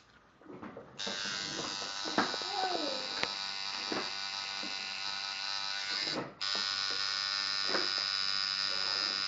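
Electric tattoo machine buzzing steadily while its needle works ink into skin. It starts up about a second in, cuts out briefly around six seconds in, then runs on.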